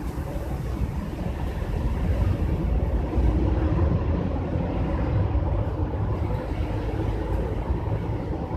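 Steady low rumbling background noise.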